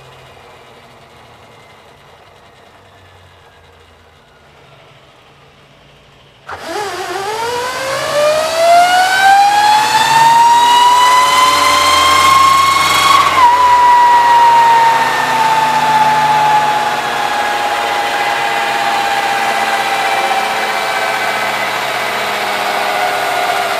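Electric motorcycle motor and drivetrain whining on a roller dyno. After a faint falling whine, a loud whine starts suddenly about six and a half seconds in and rises steadily in pitch for about seven seconds. The pitch then falls slowly while staying loud.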